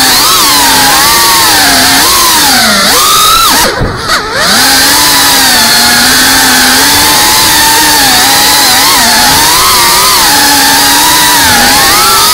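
FPV quadcopter's brushless motors and propellers whining loudly, the pitch rising and falling with the throttle. About four seconds in, the throttle drops off briefly, so the whine sinks in pitch and quietens, then it climbs back.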